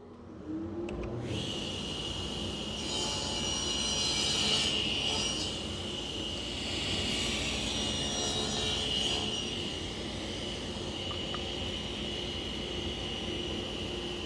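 Table saw starting up, its tone rising as the blade comes to speed, then running with a steady high whine. The blade cuts a dado in a walnut block over a few passes, making the noise rougher and louder from about 3 to 9 seconds.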